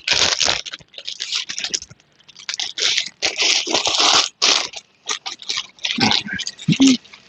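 Plastic parcel packaging being torn and crinkled open by hand, in irregular crunching, scraping rustles.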